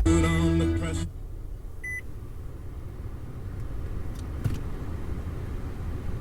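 Sound from a 2014 Nissan Altima's car radio cutting off abruptly about a second in, followed by one short high beep. A low steady car-cabin rumble runs on underneath, with a couple of faint clicks.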